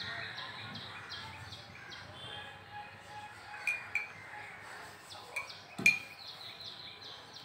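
A spoon clinking against a cup of freshly brewed masala tea as honey is stirred in: a few short sharp clinks in two pairs, the loudest near the end.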